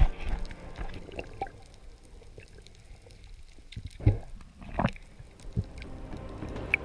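Underwater sound picked up through a camera housing: a muffled wash of water noise with a few dull knocks about four and five seconds in. Background music fades out in the first second and returns faintly near the end.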